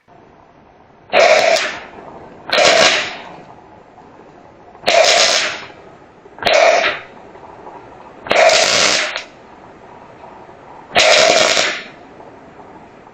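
Welder laying a series of short tack welds, six brief rough buzzing bursts each under a second long, a second or two apart, tacking steel pins onto a radiator fan.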